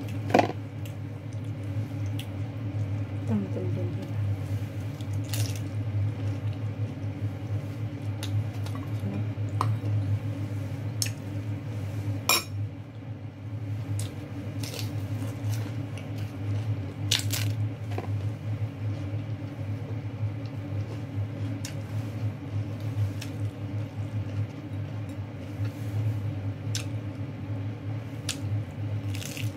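Close-up eating sounds: lettuce-leaf wraps of rice and chicken handled, bitten and chewed, with a few sharp clicks of tableware, over a steady low hum.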